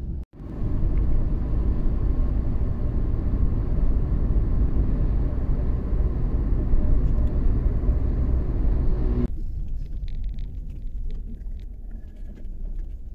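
Chevrolet Cobalt sedan on the move: a steady low rumble of engine and road noise. About nine seconds in it cuts abruptly to a quieter stretch with a few faint clicks.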